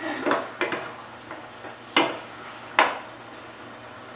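Wooden spatula stirring a chunky pork menudo in a metal frying pan, scraping through the food a few times and knocking sharply against the pan twice, about two and three seconds in. Under it a steady low hiss of the stew simmering.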